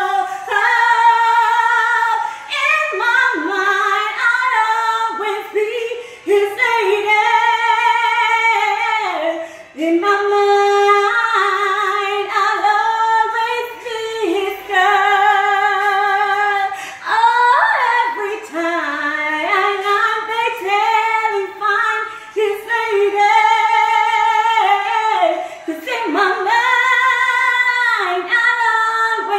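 A woman singing a cappella in a soul ballad style: long held notes with vibrato, joined by sliding vocal runs and ad-libs.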